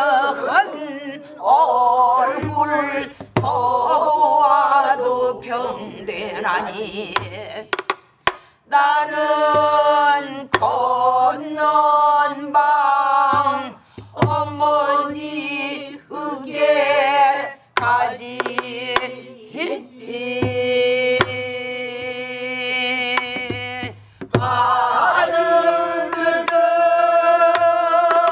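Pansori singing by a mixed group led by a woman's voice, in long held phrases with heavy vibrato. Sharp strokes on buk barrel drums mark the rhythm every few seconds.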